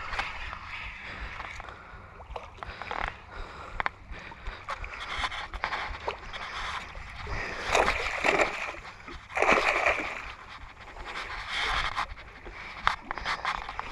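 Splashing and sloshing water at the edge of a rock jetty, with two louder splashes about eight and nine and a half seconds in.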